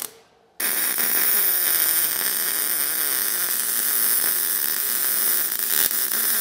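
MIG welding arc crackling and hissing steadily as a bead is run around a steel tube where it meets a steel barrel top. The arc is off for the first half second, then strikes and runs without a break.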